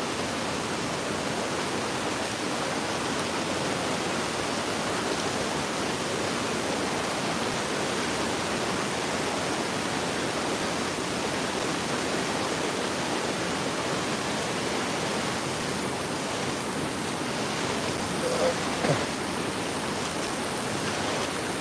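Steady rushing of shallow floodwater, an even hiss with no break. Boots splash through it as the wader walks near the end.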